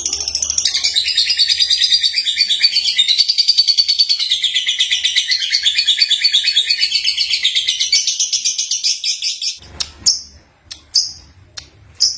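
Young lovebird singing: a long, fast, high-pitched chattering warble that breaks off about ten seconds in, followed by a few single sharp chirps about a second apart.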